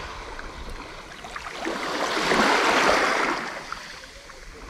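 Small sea waves washing onto a shallow beach: a rush of water that swells about two seconds in and then fades.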